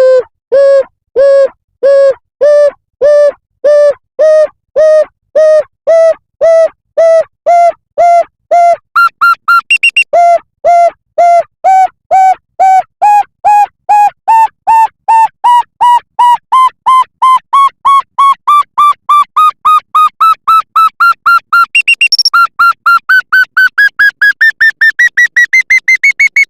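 A loud series of short electronic beeps, each a clear pitched tone, climbing steadily in pitch and speeding up from a little over one beep a second to about three a second, with a brief break about ten seconds in and a sudden step up about two-thirds of the way through.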